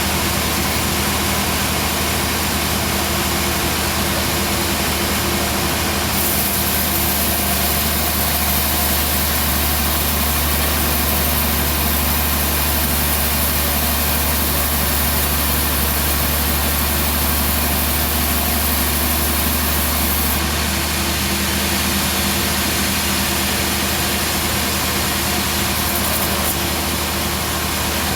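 Band sawmill running steadily with a constant motor hum, its blade sawing a teak log. A brighter, hissing edge comes in about six seconds in and drops away about two-thirds of the way through.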